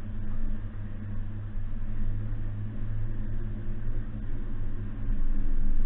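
Suzuki Jimny's 1.5-litre four-cylinder petrol engine running at a steady speed under way, a low even drone over road and drivetrain noise, growing slightly louder near the end.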